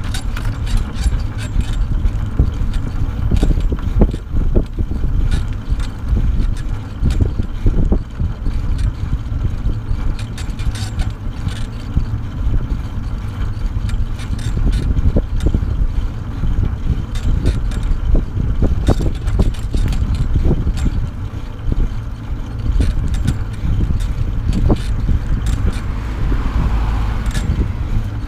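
Steady wind buffeting on the microphone and the rolling rumble of a dog trailer's wheels on asphalt, with frequent small rattles and knocks from the trailer.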